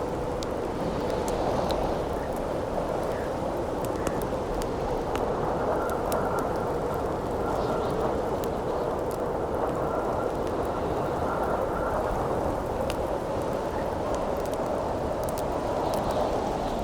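Howling wind blowing steadily, with a crackling campfire giving scattered sharp pops and snaps throughout.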